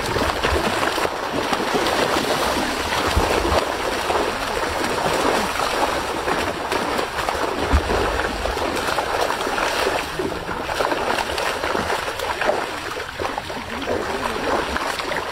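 Continuous splashing and churning of water as fish thrash at the surface inside a net in shallow water.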